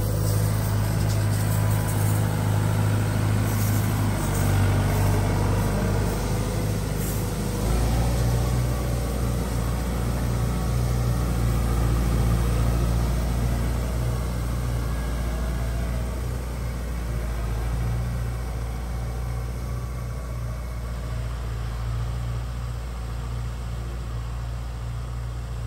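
Farm tractor engine running steadily under a mounted field sprayer. Its note changes about eight seconds in, and the sound slowly fades toward the end.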